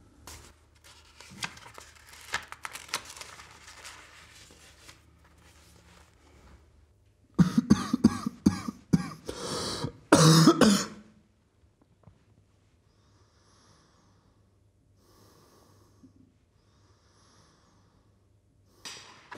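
A man coughing: a run of harsh, loud coughs lasting about three to four seconds around the middle, with only faint sounds before and after.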